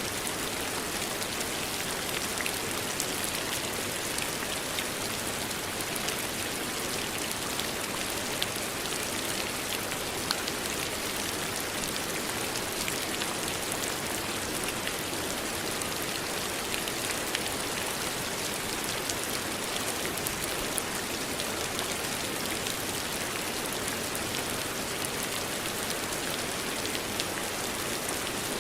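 Steady rain falling, a constant hiss with many small drops ticking on surfaces.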